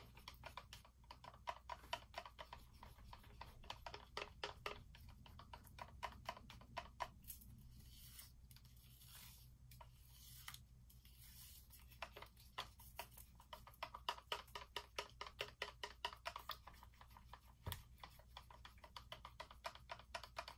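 Stir stick clicking and scraping against the sides of a plastic cup as thick acrylic paint is stirred, with quick faint ticks several a second. The ticking thins out for a few seconds in the middle, and there is one heavier knock near the end.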